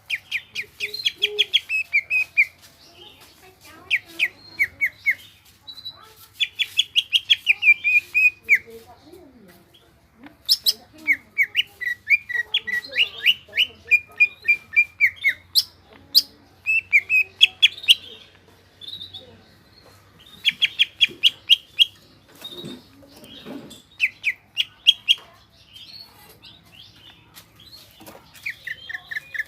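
Green leafbird (cucak ijo) singing: runs of rapid repeated chirping notes, several a second, each run lasting a second or a few seconds with short pauses between.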